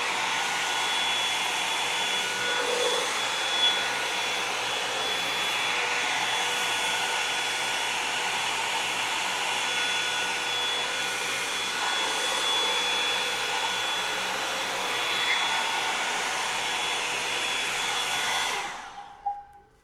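Revlon One-Step hair dryer and volumizer blowing steadily as a hot-air brush, then switched off near the end, the rush of air and motor dying away over about a second.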